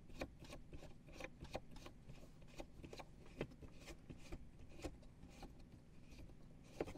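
Faint, irregular small clicks and rubbing from plastic mounting nuts being threaded by hand onto the back of an RV outdoor shower fixture.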